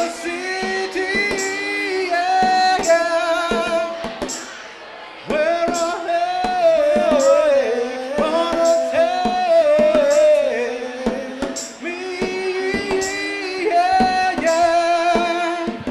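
R&B vocal sung without other instruments, over hand-played bongos: sung phrases with sliding, held notes over sharp drum strikes, dipping briefly about four seconds in.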